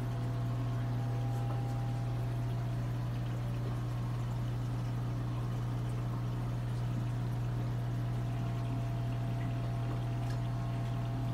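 Saltwater aquarium equipment running: a steady low hum with water pouring and trickling over it.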